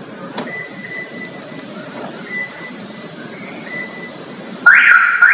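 Toyota Fortuner alarm siren giving a short, loud rising chirp near the end. It is the alarm system's confirmation that it has been switched from silent mode to sound (beep) mode after the lock–unlock–lock–lock combination on the remote.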